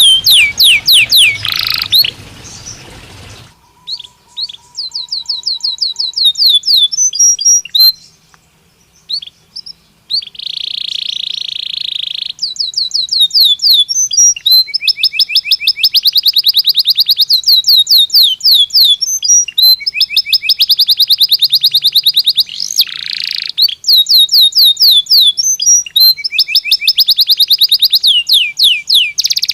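Belgian canary singing: long rolling trills of fast repeated high notes, strung into phrases broken by short pauses, with a brief buzzy phrase about a third of the way in.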